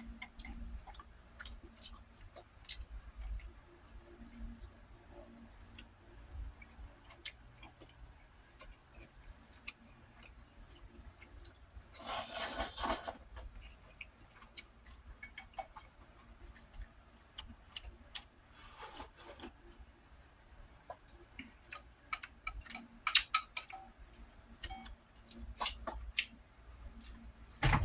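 Close-up eating sounds: chewing and wet mouth clicks, with many small ticks scattered throughout. About twelve seconds in comes a louder rushing burst lasting about a second, and a fainter one some seconds later.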